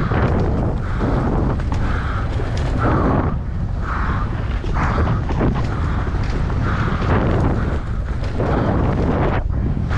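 Wind buffeting a helmet-mounted camera's microphone, with the rumble of a mountain bike's tyres and frame rattling over a dirt trail at speed.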